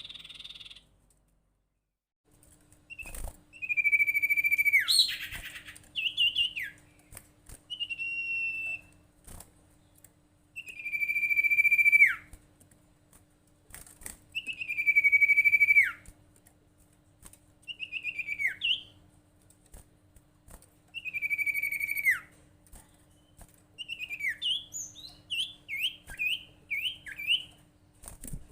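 Sirtu, a kind of iora, singing its calling song: long clear whistled notes that fall away sharply at the end, repeated every few seconds, then a run of short quick slurred notes near the end. A faint steady hum runs underneath.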